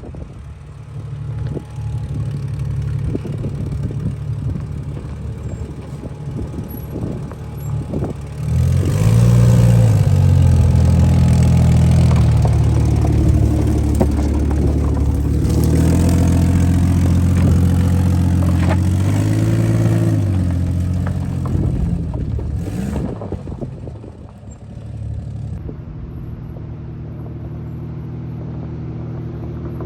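Lifted Jeep's engine running as it drives off-road; about eight seconds in it gets much louder and revs up and down for some fourteen seconds, then drops back to steady running near the end.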